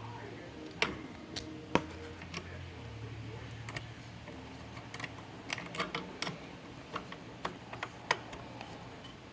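Scattered light clicks and taps of refrigerant gauge hose fittings being hand-threaded onto the service ports, over a faint low hum.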